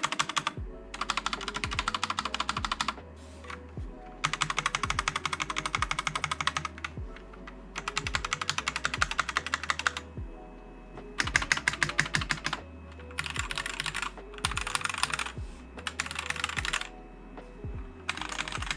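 Fast typing on a CiY X77 tenkeyless mechanical keyboard with stock linear switches, still unmodded, in runs of one to three seconds separated by short pauses; the keystrokes are pretty loud. Background music with a bass line plays underneath.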